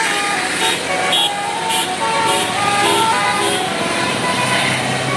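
Bus telolet Basuri musical horn playing a tune of short notes at changing pitches, over road and traffic noise.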